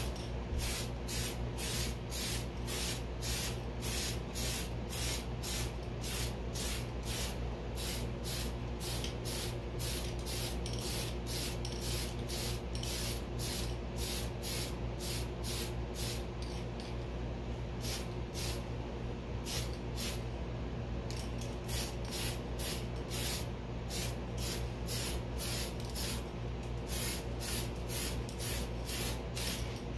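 Tamiya TS-38 gunmetal aerosol spray paint can hissing in quick, even pulses, about two or three a second, over a steady low hum.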